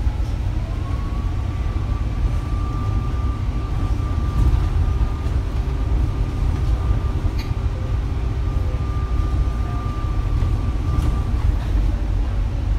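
Inside a moving bus: a steady low rumble of engine and road, with a high, thin whine that comes in just after the start, rises briefly, holds, and stops a little before the end.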